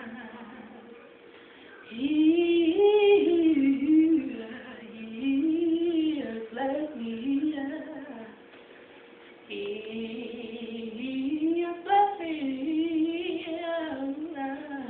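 A girl singing a gospel song unaccompanied, in long held phrases with a wavering, sliding pitch: one phrase starts about two seconds in, and a second follows a brief pause past the middle.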